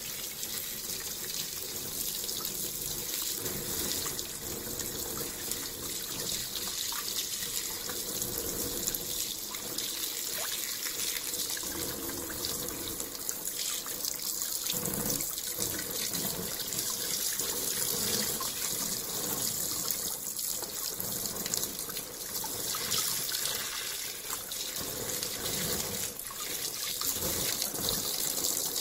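Water pouring and splashing steadily into a plastic tub, filling it around a submerged stainless steel actuator.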